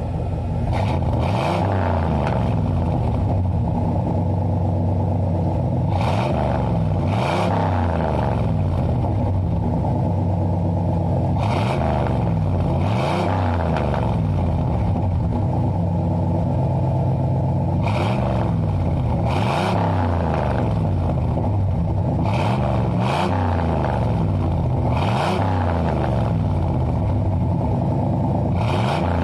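Pickup truck engine idling through a Flowmaster Super 10 muffler and being revved again and again, each throttle blip rising and falling in pitch. The revs often come two close together, with idle between them.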